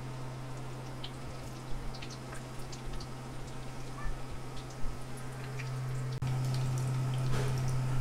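Maida-dough kolom pitha deep-frying in hot oil in a pan, with light scattered crackles and pops from the bubbling oil. A steady low hum runs underneath and grows louder about six seconds in.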